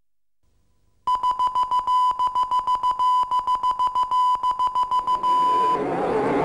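High electronic beep pulsing rapidly, about eight times a second, then held as one steady tone for a moment before it cuts off; a rushing noise takes over near the end.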